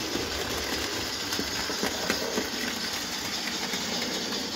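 HO-scale model steam locomotive (Trix 040D) running on the layout's track: a steady whirring rumble from its motor and wheels, with irregular clicks as it crosses rail joints and points.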